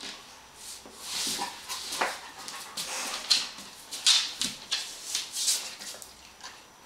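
Dogs close by: a Labrador retriever sniffing and snuffling at a Rhodesian Ridgeback, a run of short, hissy sniffs a few per second, with a brief rising whimper about two seconds in.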